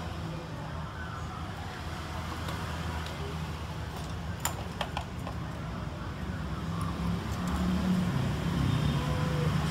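Steady low background rumble with a few light clicks about halfway through.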